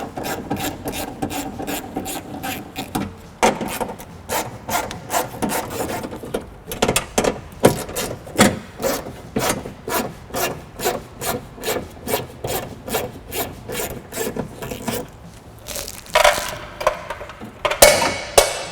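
Hand ratchet clicking in quick, even runs of several clicks a second as a 10 mm socket backs out bolts, pausing briefly between bolts. A couple of louder scrapes come near the end.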